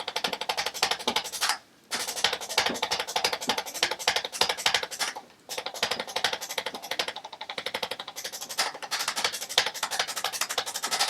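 Handheld chiropractic adjusting instrument tapping rapidly along the patient's back, a fast run of clicks like a typewriter. It stops briefly twice, about two seconds in and again about five and a half seconds in, as it is moved to a new spot.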